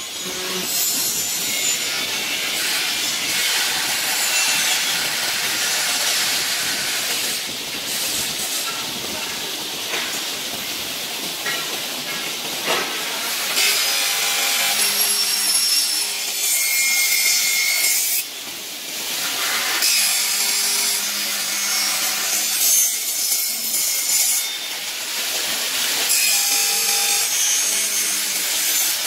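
CNC profile machining center cutting an aluminium extrusion with a disc saw blade on its spindle: a loud, continuous high-pitched cutting hiss with a faint steady whine, dipping briefly a few times as the cut changes.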